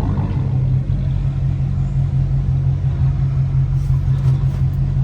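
V8 muscle car engine and exhaust running at a steady speed with a loud, even low drone. A harder, wider-sounding pull dies away in the first half second.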